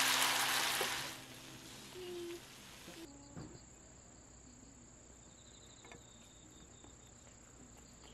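A loud hiss fades out about a second in. From about three seconds in, crickets trill steadily in one thin, continuous high tone.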